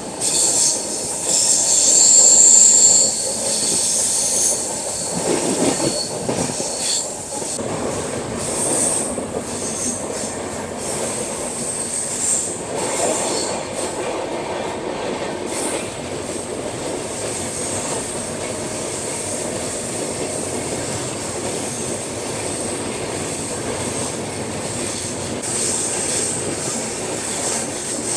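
Passenger train running through a sharp curve, its steel wheels squealing against the rails over the steady rumble of the coaches on the track. The squeal is loudest in the first few seconds, then keeps coming and going.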